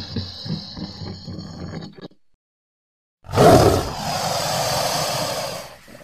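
Postosuchus creature sound effects: a low, rapidly pulsing growl, then a second of silence. About three seconds in comes a loud, sudden roar that holds steady for about two and a half seconds before stopping.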